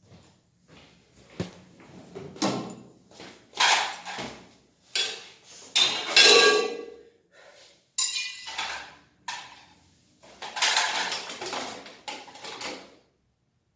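Hand tools clattering and clinking against each other in irregular knocks and rattles, some with a short metallic ring, as they are rummaged through in search of a saw.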